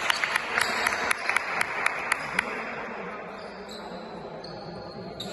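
Basketball bouncing on a court floor: a quick run of sharp bounces, several a second, for the first two and a half seconds, then only the quieter background of the hall.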